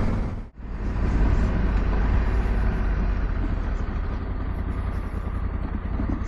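Honda Africa Twin's parallel-twin engine running steadily while riding on a dirt road, with tyre and wind rumble. The sound cuts out for an instant about half a second in, then carries on evenly.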